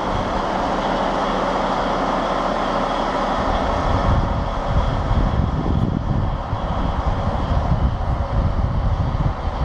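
Volvo L350F wheel loader's D16 diesel engine running steadily at idle, with a faint high whine over it. From a few seconds in, wind buffets the microphone.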